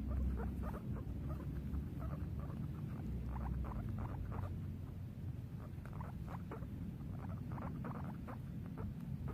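Guinea pig giving a rapid run of short squeaks, several a second, over a steady low rumble.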